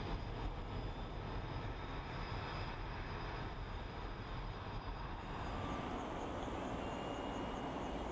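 Jet engines of a departing Boeing 747-400, heard from a distance as a steady rumble and hiss, with a faint high whine that fades about five seconds in.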